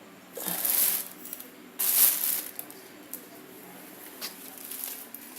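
Packaging being handled: two bursts of rustling, then a few light clicks.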